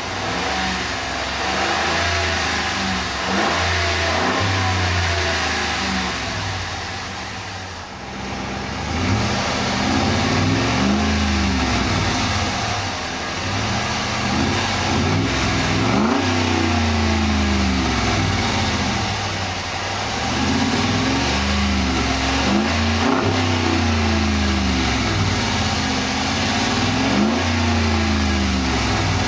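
2009 Dodge Ram's 5.7-litre Hemi V8 free-revved again and again through its dual exhausts. Each rev climbs quickly and then falls back to idle.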